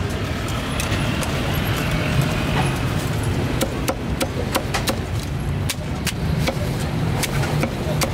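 Busy street ambience: a steady low engine hum from traffic, with people talking and many sharp, irregular clicks and knocks.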